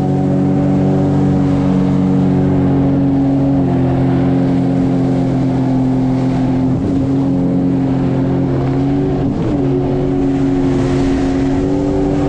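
Sea-Doo Fish Pro jet ski engine running steadily at cruising speed, with water rushing under the hull. Its pitch dips briefly about seven seconds in and wavers again around nine seconds.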